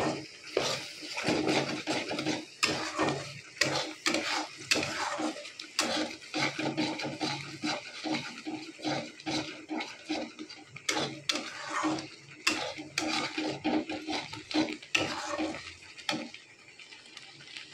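A metal spatula scraping and knocking against a steel kadai while stirring a thick, wet green paste, in quick irregular strokes over a steady low hum. It stops a little before the end.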